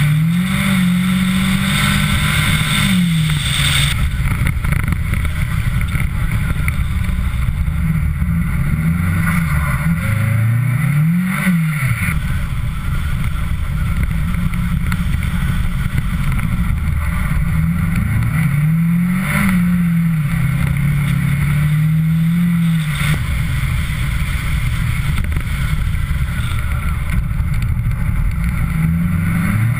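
Mitsubishi Lancer Ralliart engine under way, its pitch rising and falling several times as it revs up and shifts through gears, over a steady rush of tyre and wind noise.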